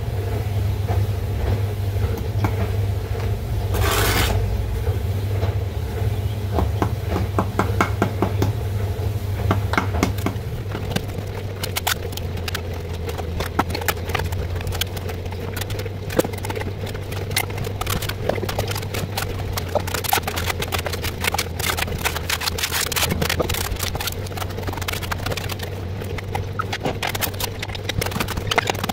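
Bricklaying by hand: a steel trowel scraping and spreading mortar, and bricks being set and tapped down, making many short clicks and knocks that grow thicker from about ten seconds in. A steady low hum runs underneath.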